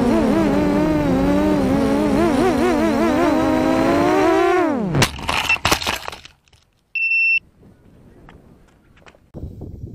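Quadcopter motors whining, recorded by the onboard camera, their pitch wobbling up and down as the quad oscillates in the wind. About five seconds in the whine drops off steeply and a few sharp knocks follow as the quad crashes, then one short electronic beep about two seconds later.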